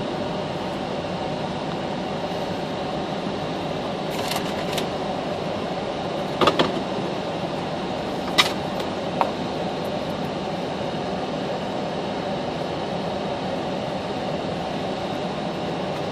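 Steady hum of an idling car heard inside its cabin, with a few scattered clicks and knocks; the loudest knock comes about six and a half seconds in.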